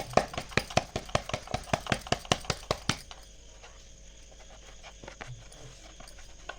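Hands patting jowar bhakri dough flat on a board, a quick, even slapping of about five pats a second that stops about three seconds in.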